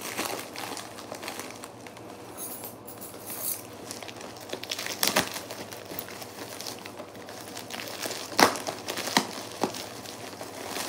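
A plastic Priority Mail mailer crinkling and rustling as hands work it open, with a few sharper crackles in the second half.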